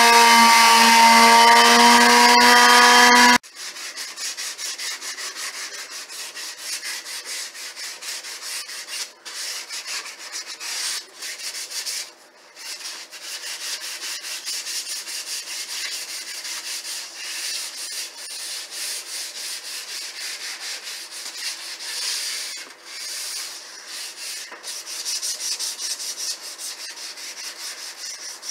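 An electric palm sander runs on a painted cabinet door with a steady, high motor hum for about three seconds, then cuts off suddenly. After that comes rubbing by hand across the door's surface in quick, uneven back-and-forth strokes, like hand sanding.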